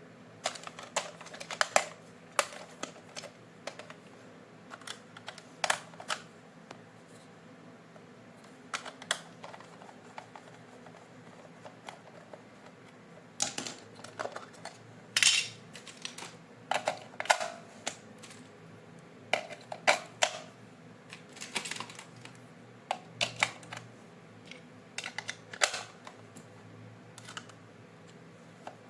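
Irregular light clicks and taps of hard plastic being handled, singly and in quick clusters, as a toy and its packaging are unboxed.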